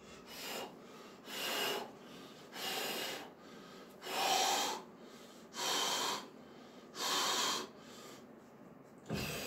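A man panting hard after a maximal partial deadlift, with a loud breath about every second and a half. A deeper, heavier breath comes near the end.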